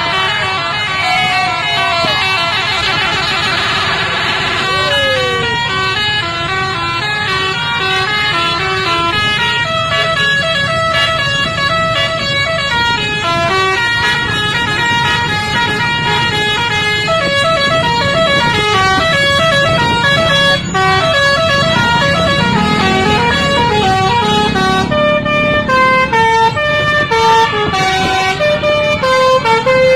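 Telolet bus horn, an electric multi-tone horn, playing melodies of short stepped notes, with sliding, warbling tones in the first few seconds, over the low rumble of the bus.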